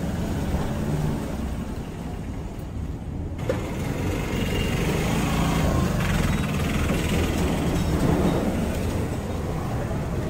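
A steady, low mechanical rumble with a noisy hiss over it, growing louder about three to four seconds in.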